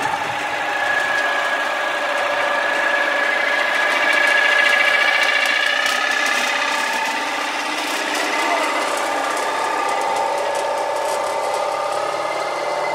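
Old Massey Ferguson tractor running steadily as it tows a reaper-binder, engine and the binder's moving mechanism clattering together.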